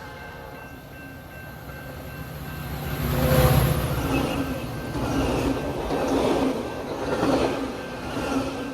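Passenger train passing close by. It grows louder to a peak about three and a half seconds in, then swells and fades in a steady rhythm, about once a second, as the cars go past.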